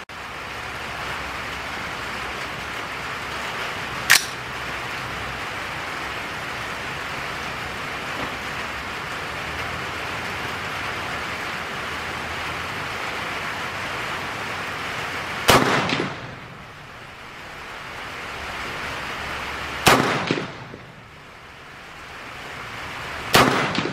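Steady rain hiss with a single sharp click about four seconds in, then three shots from a 350 Legend AR-style rifle firing 190-grain cast bullets, about four seconds apart in the last third. The rain hiss dips briefly after each shot.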